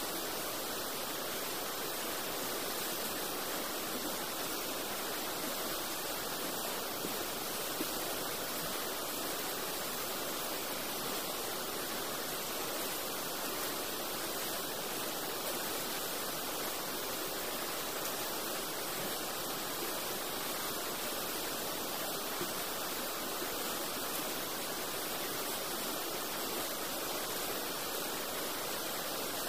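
Steady rushing of a flooded river's fast-flowing water, an even hiss that holds at one level.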